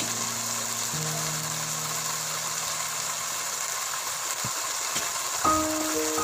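Background music over the steady sizzle of yellow chives stir-frying in a wok. The music holds long chords, then turns to a melody of short notes about five seconds in.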